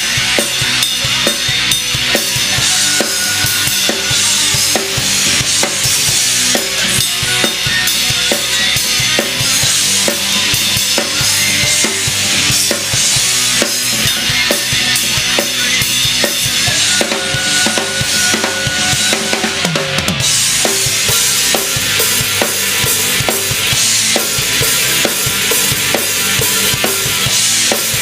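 Rock band music driven by a DW Collector's drum kit, its bass drum and snare keeping a steady, busy beat under sustained pitched instruments.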